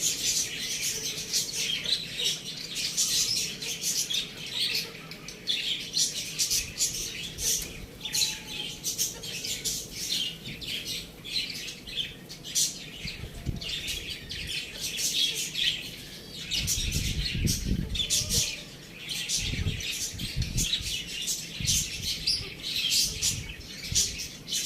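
A flock of small birds chirping continuously in many rapid, high chirps. There are a few low rumbles about two-thirds of the way through.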